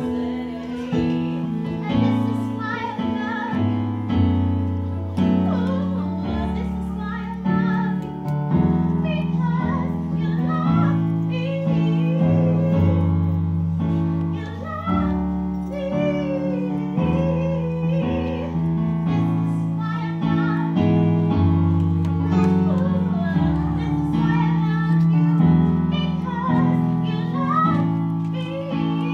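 A woman singing live to an electronic keyboard playing sustained chords.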